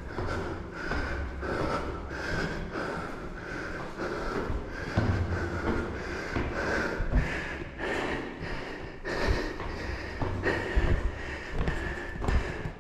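A person breathing hard in quick, even puffs while walking up stairs, near the end of an 18-floor climb, with footsteps on the stair treads.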